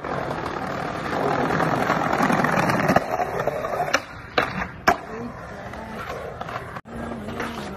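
Skateboard wheels rolling on concrete, with a few sharp clacks of the board striking the ground about three to five seconds in.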